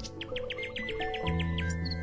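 Background music of steady held notes, with a bird chirping over it in a quick trill of short falling notes, about eight a second, that stops shortly before the end.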